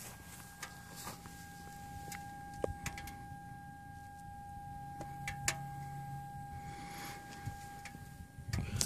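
Steady high-pitched whine from inside a 2013 Kawasaki ZX-6R's fuel tank, with the engine off, and a few light clicks and taps over it. The owner first suspected the fuel pump and later puts the whine down to pressure built up in a tank filled to the brim.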